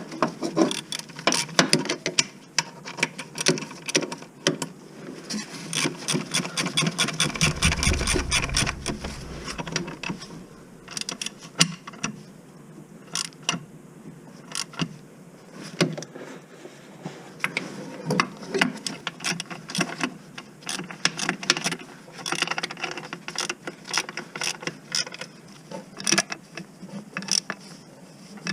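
Ratchet clicking in rapid runs for the first several seconds, then in slower, scattered strokes, as fasteners are worked on the van.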